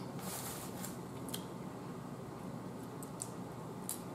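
Quiet crab-eating sounds: about four short, faint clicks and crackles as a piece of crab shell is picked apart by hand, over a steady low background hum.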